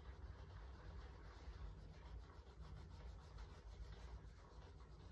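Faint scratchy strokes of crayons being rubbed over paper while colouring in, many short strokes in quick succession.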